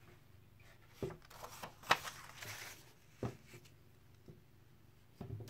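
A sheet of black craft paper being handled and laid flat on a table: three brief rustles and taps of the paper.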